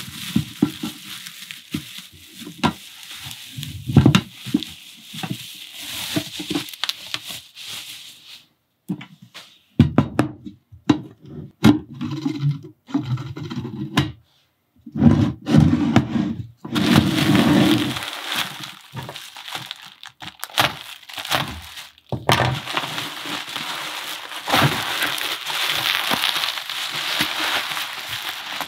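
Taps and knocks from handling a clear acrylic enclosure and its lid, then bubble wrap crinkling and rustling as it is pulled off a box.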